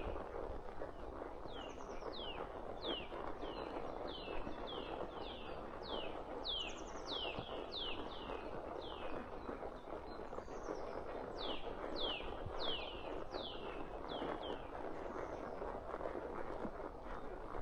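A songbird calling over and over with short chirps that each slide down in pitch, about two a second, pausing briefly around the middle before starting again. Underneath is a steady even rustling noise.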